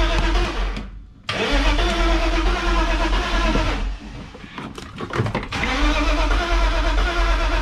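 BMW E36 engine cranking on its starter motor without firing, in three attempts: a short break about a second in and a longer one from about four to five and a half seconds in, with a few clicks in the longer break. It turns over but will not catch, a no-start that the owner suspects is fuel-related.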